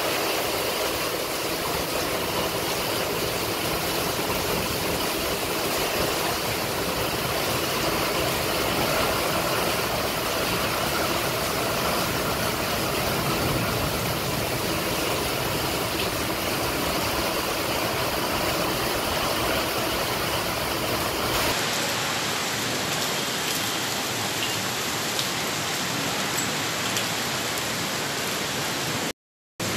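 Heavy rain pouring in strong wind: a steady, loud rush of rain. About 21 seconds in it changes to a thinner, hissier rain sound with less low rumble, and it cuts out for a moment near the end.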